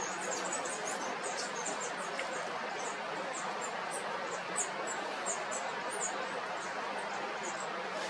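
Frequent short, high chirps of small birds over a steady hiss of outdoor background noise.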